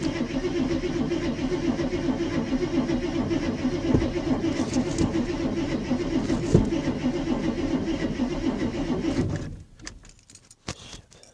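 Ford F-150 engine being cranked by the starter for about nine seconds without catching, then the cranking stops. A few sharp knocks come through along the way. The truck is hard-starting after sitting for about four weeks.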